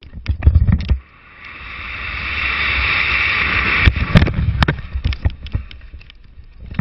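Wind noise on a helmet camera during a BASE jump. A second of heavy low buffeting is followed by a rushing hiss that builds steadily through about three seconds of freefall. Then come several sharp cracks as the parachute deploys, and after them irregular flapping and buffeting of the opened canopy.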